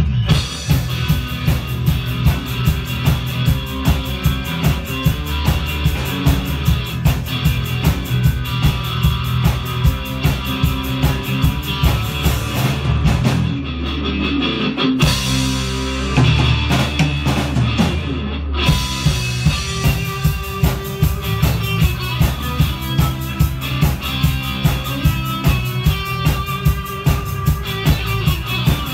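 A live rock band playing loudly: drum kit keeping a steady beat of about two hits a second, with electric guitar and bass. Midway the drums drop out for a few seconds under low held notes, then the full band comes back in.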